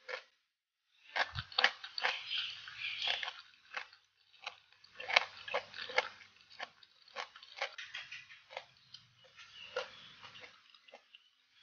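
Crunchy chewing and biting: a run of irregular, crisp crackles, densest in the first half, thinning out toward the end.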